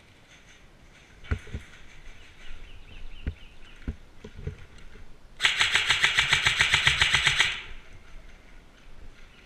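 Krytac CRB airsoft electric rifle firing one rapid full-auto burst of about two seconds, starting about five and a half seconds in, preceded by a few scattered knocks.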